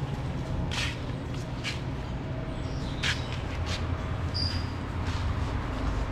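Shop background: a steady low rumble with scattered short scuffs, and one short high beep about four and a half seconds in.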